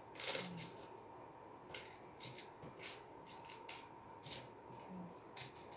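Faint, irregular short scratchy sounds, about ten of them, like small objects being handled or rubbed, over a faint steady hum.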